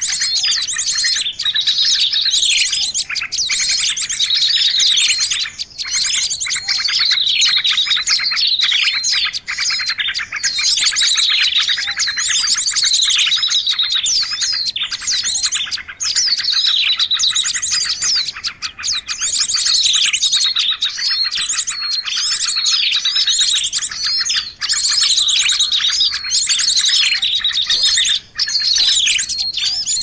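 A busy chorus of many small songbirds calling at once, a 'burung ribut' bird-lure mix of chirps, fast trills and repeated falling whistles with no pause. Such noisy mixed-bird tracks are played to draw wild birds in for trapping.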